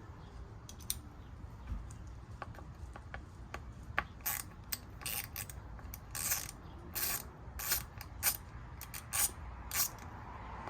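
A hand ratchet clicking in a dozen or so short strokes, starting about four seconds in, as the small Torx ground stud is worked loose.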